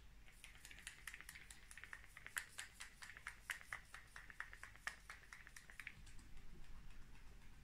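Rimmel London Insta Fix and Go pump-mist setting spray spritzed onto the face in quick repeated sprays, about five a second, stopping about five seconds in.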